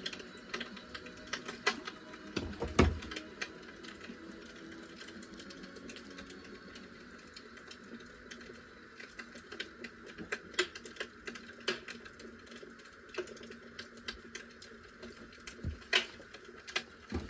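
Scattered small clicks and taps of a plastic dye squeeze bottle and gloved hands working dye into a shirt on a plastic-covered table, with one louder knock about three seconds in.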